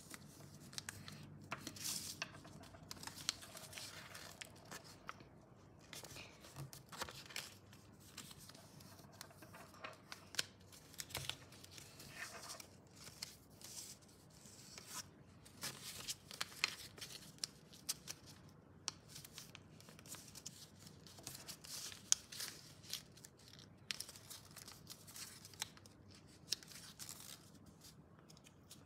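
Paper being folded and creased by hand, with irregular crinkling and rustling and short swipes as fingers press along the creases.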